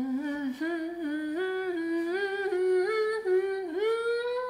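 A woman humming a wordless tune in a single voice, the pitch climbing in steps, then sliding up into a long held high note near the end.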